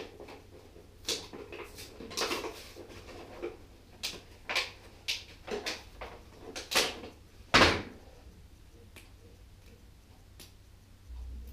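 Irregular clicks, taps and rustles of boxboard card and sticky tape being handled on a tabletop, with a dull knock about two-thirds of the way through.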